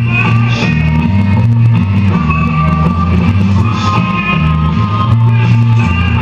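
Rock music with guitar and a steady, loud bass line.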